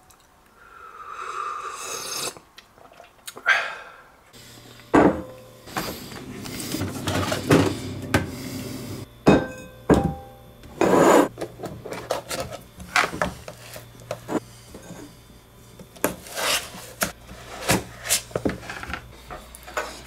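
Ice cream being scooped out of a tub and served into a ceramic bowl: a run of scrapes, knocks and clinks of a utensil on the tub and the bowl, over a low steady hum through most of the middle.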